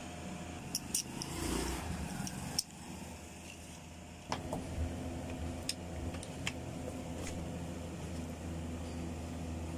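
Scattered light clicks and taps of metal parts as a mixer-grinder motor and its spring-loaded carbon brush are handled, over a steady low hum.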